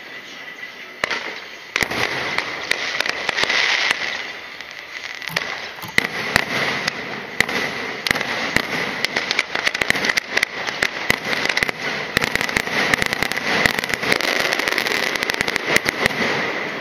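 Fireworks going off in quick succession: a dense, loud run of sharp cracks and pops that thickens about two seconds in and keeps crackling.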